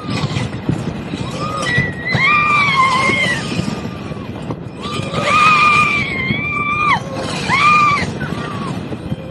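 Roller-coaster riders screaming: several long, high screams, the loudest running from about five to seven seconds in, over a steady rushing of the wooden coaster train and the wind.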